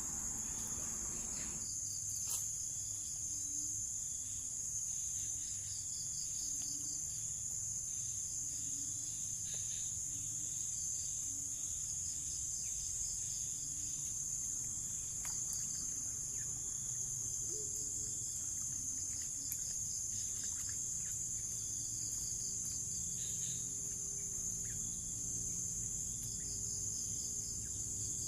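Insect chorus: a steady high-pitched drone, with short pulsing trills coming in every few seconds over it.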